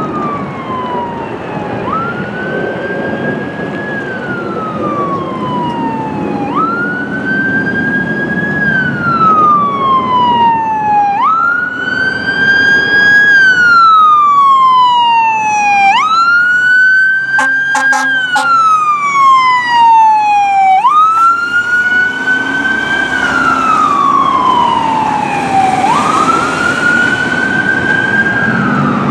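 Fire engine siren on a repeating wail: each cycle jumps up quickly and then slides slowly down, about once every five seconds, over the truck's engine and road noise as it approaches and passes. A cluster of short sharp blasts sounds a little past the middle, at the loudest point.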